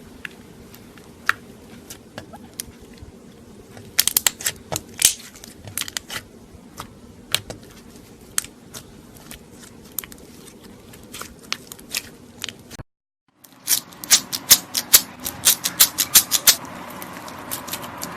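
Slime being squeezed and worked by hand, giving sharp, irregular clicking pops. After a brief break, a faster run of crackling pops follows.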